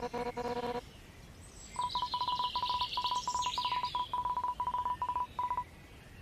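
Synthesized game-style beep sound effects. A buzzy low tone pulsing a few times a second stops about a second in. After a short pause comes a run of short high electronic beeps at one pitch, unevenly spaced, for about four seconds, with a higher chirpy sound over part of it.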